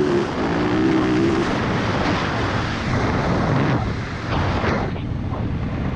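Dirt bike engine running hard at speed with a wavering pitch, which drops lower and eases off about halfway through. Wind noise on the microphone is heard throughout.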